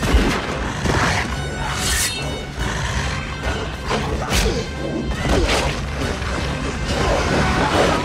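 Action-scene film soundtrack: dramatic music under a busy mix of crashes and heavy thuds, with a loud hit right at the start and more sharp crashes a couple of seconds in and around the middle.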